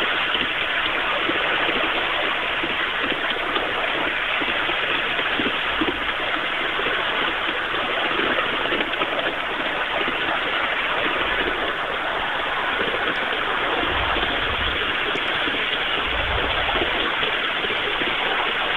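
5-inch gauge ride-on locomotive coasting downhill with its brushless motor idle: a steady rushing rumble of the wheels rolling on the rails, with a few low bumps in the second half.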